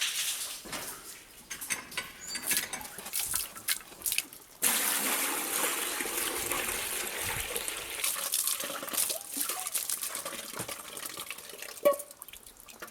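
Water poured through a disassembled electric water pump to rinse it out, starting suddenly about a third of the way in as a steady splashing rush that slowly tapers off. Small knocks and clatter of handling the parts come before it, and a sharp knock sounds near the end.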